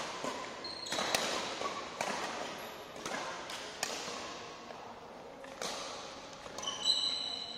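Badminton rally: a shuttlecock struck back and forth by racquets, with sharp hits about once a second, each echoing briefly in the hall. Short squeaks of shoes on the court floor come shortly after the start and again near the end.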